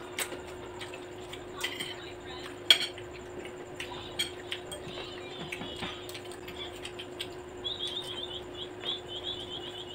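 Forks clinking against plates while eating: a scatter of light clicks, with one sharper clink about three seconds in, over a steady low hum. A rapid, high chirping starts near the end.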